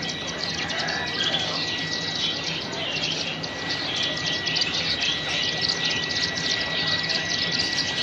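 Continuous dense chirping and chattering from a crowded cage of small birds, zebra finches and lovebirds, many calls overlapping at once. A thin steady high tone runs underneath.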